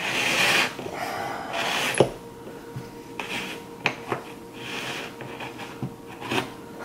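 Round hole cutter turned by hand, rasping through drywall in short scraping strokes about every second or so, with a few sharp clicks in between.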